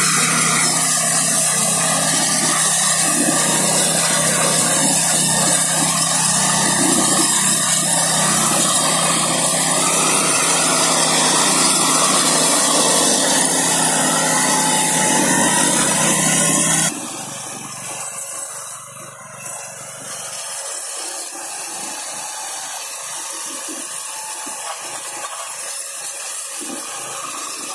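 Neva MB-2 walk-behind tractor's petrol engine running steadily at high speed, driving a Zarya rotary drum mower through grass and weeds. About two-thirds of the way through the sound drops abruptly to a quieter, hissier running.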